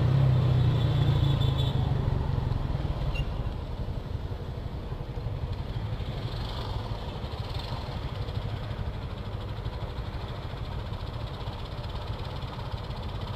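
Motorcycle engine running as the bike slows for a traffic light. The engine sound drops about three seconds in and settles into a steady idle.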